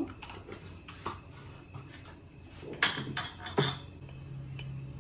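Light clinks and knocks of kitchen utensils against a stainless-steel mixing bowl, with a few louder knocks about three seconds in. A low steady hum starts about three and a half seconds in.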